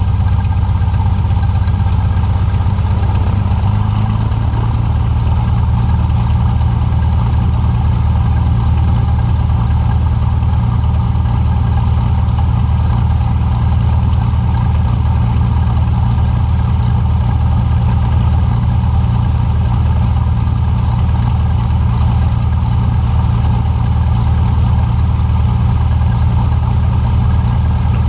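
Single-engine light airplane's piston engine and propeller running at low taxi power. The engine note steps down a little about four seconds in, then holds steady.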